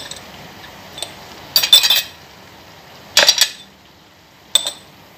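Metal kitchen utensils clinking against dishes: several short, sharp clinks a second or so apart.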